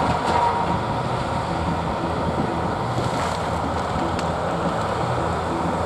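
Steady low rumble of heavy trucks running, mixed with wind buffeting the microphone.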